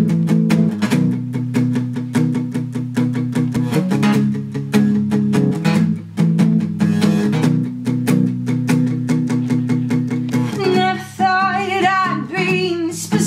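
Steel-string acoustic guitar strummed in a quick, steady rhythm, changing chord every few seconds. About ten seconds in, a woman's singing voice comes in over the guitar.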